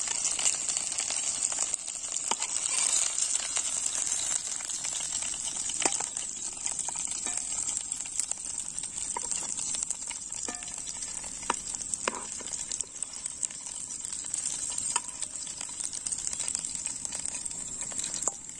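Fish pieces frying in hot oil in a black iron wok, a steady sizzle, with a metal spatula now and then clicking and scraping against the pan as the pieces are turned. The fish is nearly done, fried crisp and red-brown.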